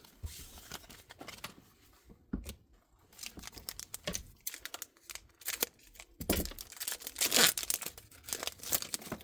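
Foil wrapper of a Pokémon trading card booster pack being handled, crinkled and torn open: small rustles and crackles at first, then the main loud tear about six seconds in and a shorter rip near the end.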